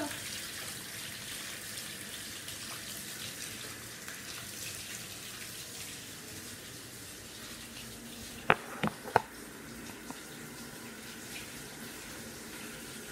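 Bathtub faucet running steadily into the tub, an even hiss of water. About eight and a half seconds in, three sharp knocks come close together.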